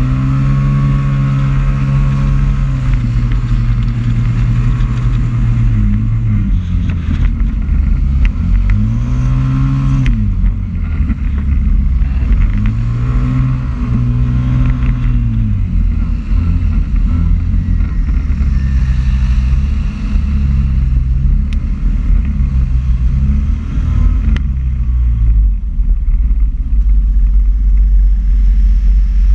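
Scooter engine heard on board, revving up and dropping back again and again through the corners, with heavy wind rumble on the microphone. The revs rise and fall in long swells over the first half, then run lower and steadier.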